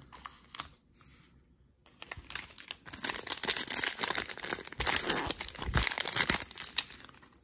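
Plastic cellophane trading-card pack being torn open and crinkled by hand, a dense crackling of wrapper that starts about two seconds in after a brief quiet.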